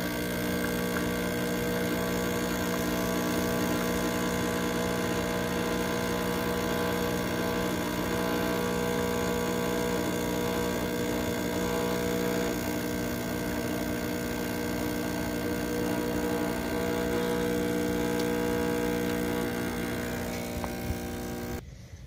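DēLonghi EC-702 espresso machine's vibration pump humming steadily as it pushes water through the portafilter for a double shot, espresso streaming from both spouts into the cup. The hum cuts off suddenly near the end.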